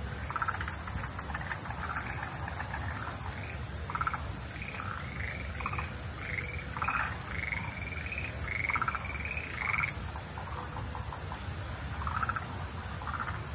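Frogs calling at night: many short pulsed croaks, with a run of higher, clearer notes about halfway through, over a steady low background rumble.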